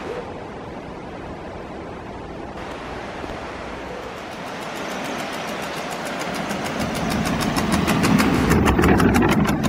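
Electric kick scooter towing a canoe on a small wheeled trolley, rolling on asphalt. The rolling noise swells as it comes close and is loudest near the end, with a fast, even ticking on top.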